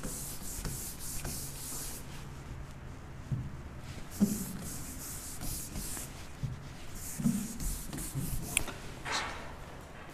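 A palm rubbing quickly back and forth across the glass screen of an interactive smart board, wiping off handwriting, in three spells of rapid strokes with a few soft knocks of the hand against the screen.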